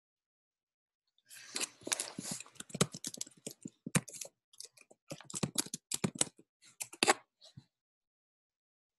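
Typing on a computer keyboard: a quick run of key clicks that starts about a second in, with a few short pauses, and stops shortly before the end.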